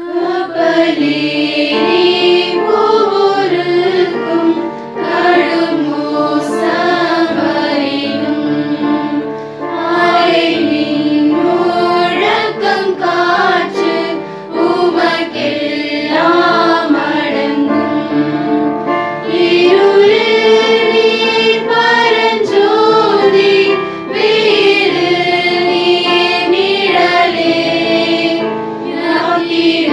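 A mixed church choir singing a hymn together, entering right at the start.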